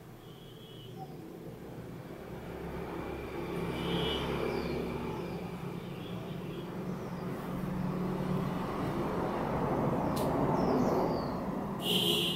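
A road vehicle passing outside, its engine and tyre noise building over several seconds and easing off near the end, with birds chirping.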